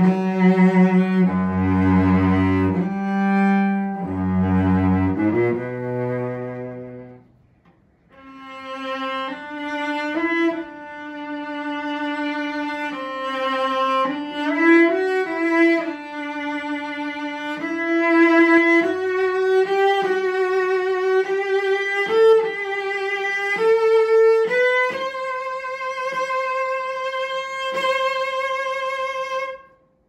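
An ER Schmidt 'Standard' German cello from around 1890, strung with Larsen Magnacore strings, being bowed. Low-register notes play for about seven seconds, then after a brief pause a higher melody with vibrato climbs to a long held note that stops just before the end.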